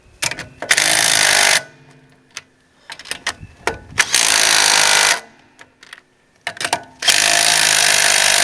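Impact wrench run in three bursts of about a second each, tightening a car's wheel lug nuts, with short clicks between the bursts.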